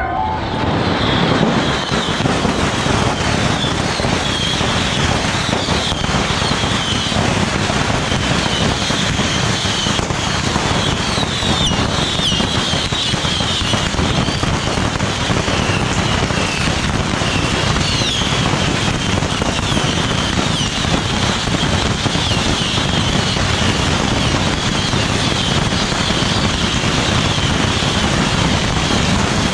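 A dense, continuous barrage of bottle rockets from the Yanshui beehive rocket festival. Many short, overlapping whistles sound over a steady crackling hiss of launches and bursts.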